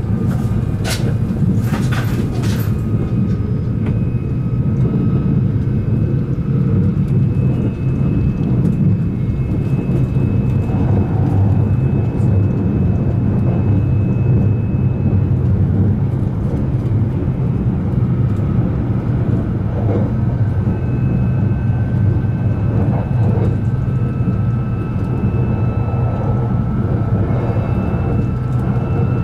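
Running sound inside a JR Hokkaido 789-series electric motor car at steady speed: a continuous rumble of wheels on rail, with faint steady whines from the Toshiba IGBT VVVF inverter traction drive coming and going. A few sharp clicks in the first three seconds.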